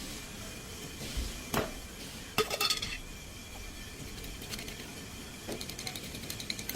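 Metal tools clinking and knocking against metal parts: a single hit, then a quick cluster of ringing clanks, then a run of light ticking clicks near the end.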